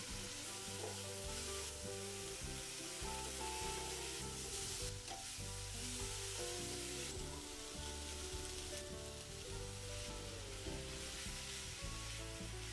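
Vegetables sizzling steadily in hot oil in a stainless steel pan, stirred and turned with a wooden spatula.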